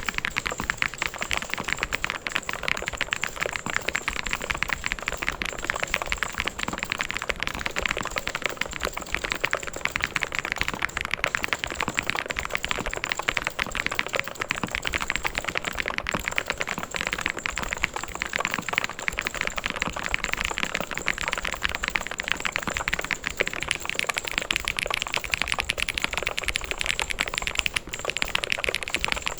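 Fast, continuous typing on a mechanical keyboard: a dense, unbroken stream of key clicks and clacks.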